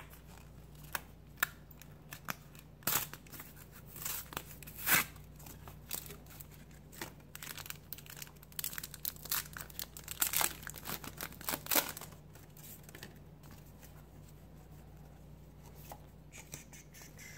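Foil Pokémon booster pack wrapper being torn open and crinkled by hand: a run of sharp rips and crinkles over about the first twelve seconds, then only faint rustling.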